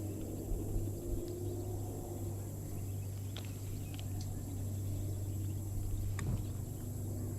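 A steady low hum with a few faint, sharp ticks.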